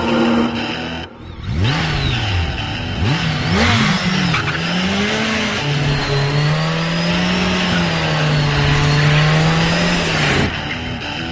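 A high-revving engine blipped up and down several times, then held at a steady high-rev note for about four seconds before cutting away, with music near the start and end.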